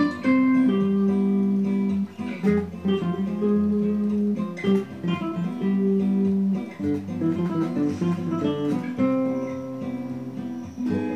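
Guitar music: plucked and strummed guitar notes, held and changing every second or so, over a low bass line.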